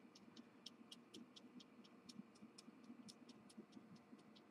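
Near silence: room tone with faint, even ticking at about four ticks a second.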